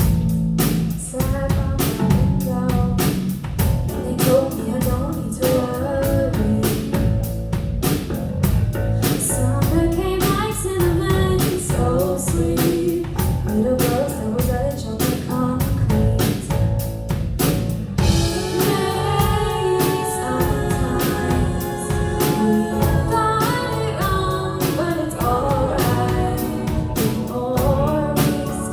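Live band playing a song: drum kit keeping a steady beat under bass and guitar, with a singing voice.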